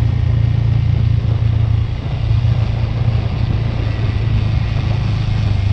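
Motorcycle engine running steadily as the bike is ridden along a road, a strong low hum with a hiss of wind and road noise over it. The sound dips briefly about two seconds in, then picks up again.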